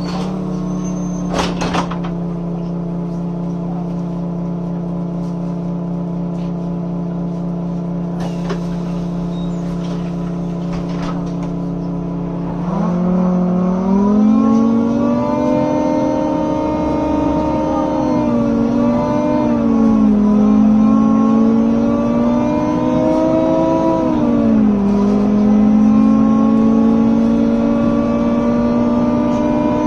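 BMC Procity city bus, Cummins ISB 6.7 engine with its cooling fans switched on, giving a steady hum at idle. About thirteen seconds in, the pitch rises as the bus pulls away. It drops back twice as the ZF automatic gearbox shifts up, then climbs again.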